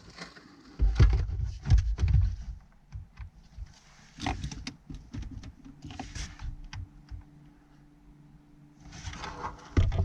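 Low thumps and scattered plastic clicks and knocks as a car radio and its wiring plugs are handled and pushed into the dash, the heaviest thumps about one to two seconds in.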